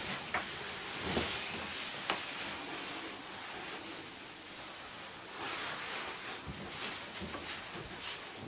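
Quiet room noise with soft rustling and two sharp clicks, about half a second and two seconds in.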